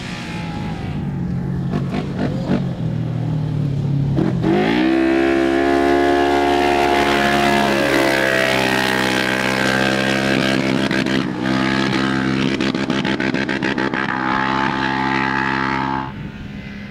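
Polaris RZR 900 side-by-side rally buggy engine on a dirt stage, revving up sharply about four seconds in and then held at high revs under full throttle. The sound drops abruptly about a second before the end.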